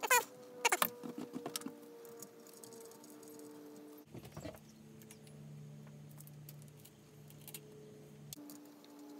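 Metal clinking of battery cable ring terminals against the battery posts: two sharp ringing clinks near the start, then lighter rattling clicks. After that it is mostly quiet, with a faint low hum in the middle and a few soft clicks.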